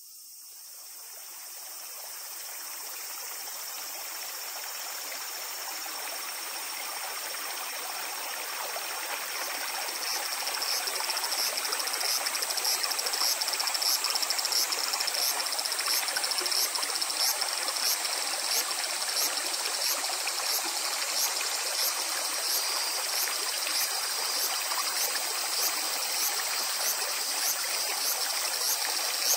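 Shallow river water running and rippling over stones, with steady high insect song above it. The sound fades in over the first few seconds, and from about ten seconds in a regular high chirp, about one and a half a second, pulses through the insect song.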